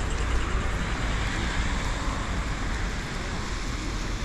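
Steady road traffic noise on a city street, with a deep rumble underneath.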